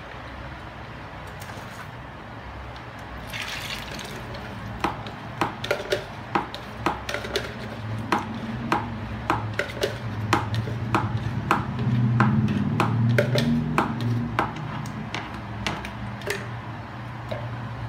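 A green plastic spoon knocking and scraping against a red plastic dipper as yeast is stirred into pukis batter: a run of sharp clicks, about one or two a second. A low steady hum runs underneath, louder about twelve seconds in.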